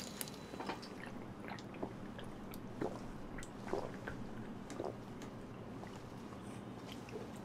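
A person gulping a drink from a can close to the microphone: faint, irregular wet swallowing clicks, about one a second, thinning out near the end.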